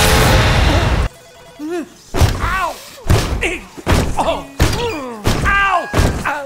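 Cartoon soundtrack effects: a loud explosion noise that cuts off about a second in, then a run of hard bangs, roughly one or two a second, each followed by a short wavering cry or tone that bends in pitch.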